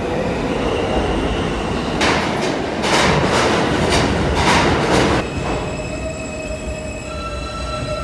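Subway train pulling into the station: a rumble with rapid clattering of wheels for a few seconds as the cars pass. From about five seconds in, a steady high whine with several pitches as the train brakes to a stop.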